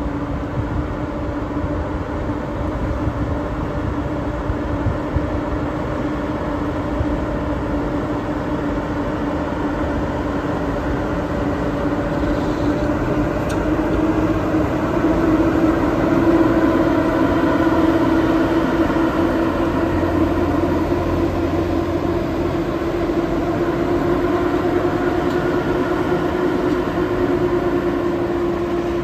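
ET41 twin-section electric locomotive starting a heavy coal train, with a steady electric whine over a low rumble. The whine rises a little in pitch through the first half as the train gathers speed, then holds.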